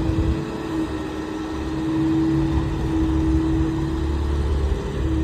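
A heavy engine running steadily: a low rumble with a constant droning hum.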